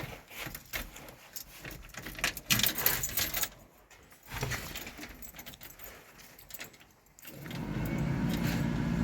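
Keys jangle and click for the first few seconds. About seven seconds in, the starter begins cranking the 1971 Chevy C10's 350 V8, a steady loud churn: a cold start after the truck has sat about five months, with the battery still strong enough to turn it over.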